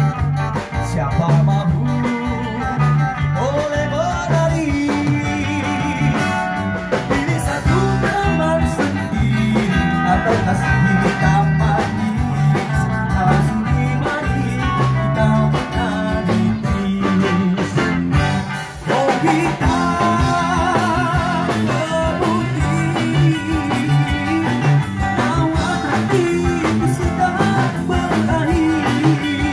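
Live band music: a guitar-led song over bass guitar and drum kit, with singing into a microphone.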